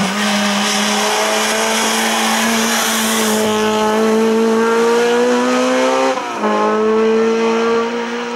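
Honda Civic hillclimb race car's engine pulling hard at high revs, its note climbing slowly. About six seconds in the note breaks off and comes back lower at a gearshift, then climbs again.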